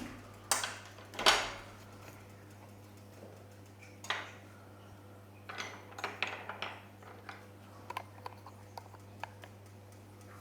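Handling noises during a hands-on manual therapy treatment: two sharp knocks about half a second and just over a second in, then a run of light scattered clicks later on, over a steady low hum.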